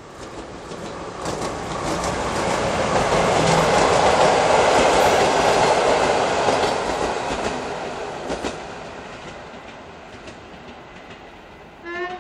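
A diesel locomotive of the SU160 class (Newag Gama) hauling a passenger train past at speed. The engine and the wheels clatter over the rail joints, swelling to a peak and fading away as the train goes by. A brief rising tone sounds near the end.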